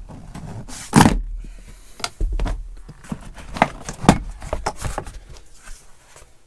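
Plastic trim snapping and clicking as a pickup's front kick panel is pried off: the push pin popping out and the panel's clips letting go of the A-pillar, with one sharp snap about a second in and several lighter clicks and knocks after.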